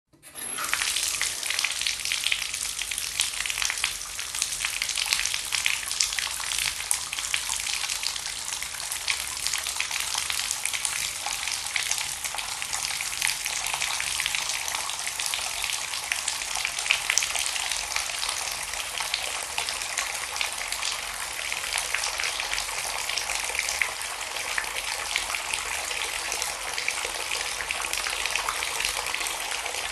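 Water pouring in a steady, continuous splashing stream, a fine crackling hiss that starts right at the beginning and holds even throughout.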